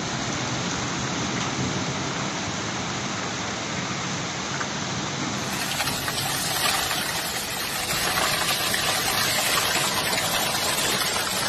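Heavy downpour of rain and hail, a steady dense hiss. About five seconds in it changes to a brighter, crisper patter of hailstones falling onto a hail-covered garden.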